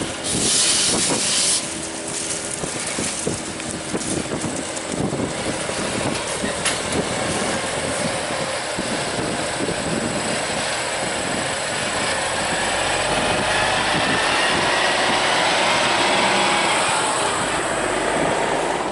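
Heavy diesel machinery running, with a loud hiss lasting about a second near the start and the engine's pitch climbing through the second half.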